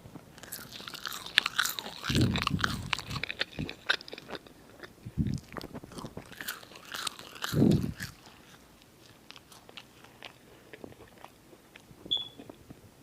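Close-up chewing of french fries: many small wet mouth clicks and smacks, with a few low dull thuds in the first eight seconds, then quieter chewing.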